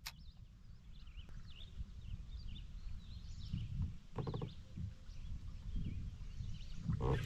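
Wind rumble and small waves lapping against a kayak hull, with faint bird chirps.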